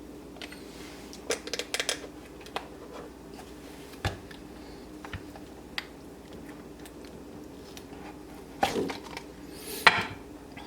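Hands handling a refrigerator ice-auger motor and its rubber housing: scattered light clicks and taps, with a couple of louder rubbing scrapes near the end, over a faint steady hum.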